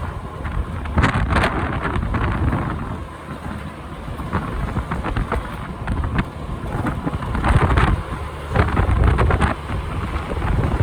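Strong typhoon wind buffeting the microphone on a moving motorcycle: a deep, ragged rumble that surges and eases in gusts, loudest about a second in and again from about seven and a half seconds on.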